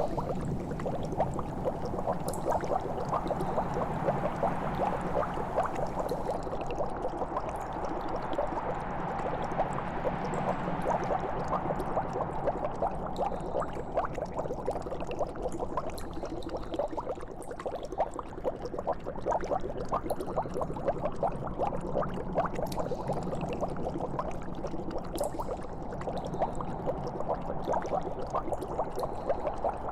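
Liquid bubbling and gurgling steadily: a dense, unbroken stream of small pops over a low, even rumble.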